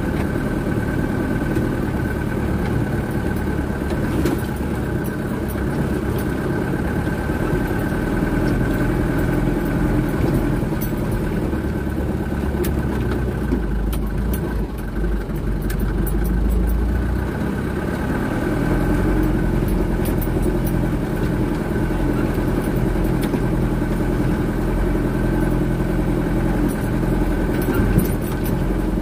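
Dump truck's diesel engine running steadily as the truck drives over rough, rutted dirt, with scattered short rattles and knocks. The low rumble grows heavier for a few seconds about midway.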